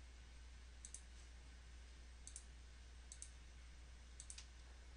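Faint computer mouse clicks: about four pairs of quick ticks, roughly a second apart, as lines are picked one by one to trim in a drawing program. A low steady hum underneath.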